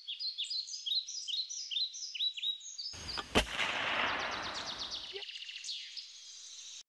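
Birdsong of repeated down-slurred chirps, about two a second. About three seconds in, a rush of noise with a single sharp shot in it runs for about two seconds and stops abruptly. A fast bird trill follows, then the sound cuts off suddenly.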